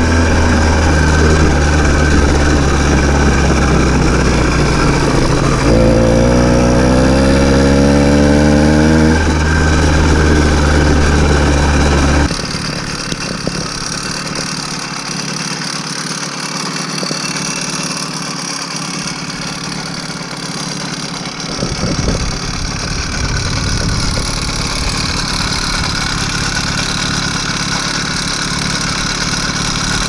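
Small motorized-bicycle kit engine running steadily, revving up about six seconds in and settling again; it is the motor's first run after sitting unused for a long time. About twelve seconds in, the sound cuts abruptly to a quieter, thinner engine sound with the deep low end gone.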